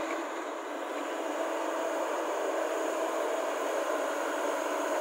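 JCB JS205 LC tracked excavator running steadily under hydraulic load as the boom, arm and bucket are raised and swung round.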